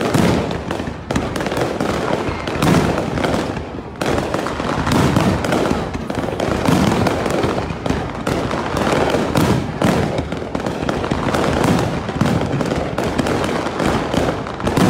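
Fireworks display in a continuous barrage: aerial shells bursting one on another with dense crackling, loud and without a break.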